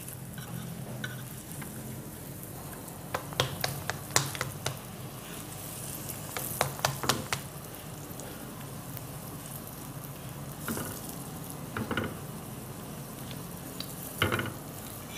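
Lachha paratha frying in ghee in a pan, a steady sizzle, with a spatula pressing it and clicking and scraping against the pan in short clusters, about three seconds in, again around six to seven seconds, and twice near the end.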